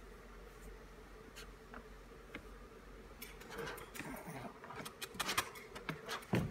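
Soft scuffling and rustling as a three-week-old shar-pei puppy crawls across a blanket and shaggy rug, with scattered small clicks from about halfway through, over a faint steady hum. A louder low thump near the end.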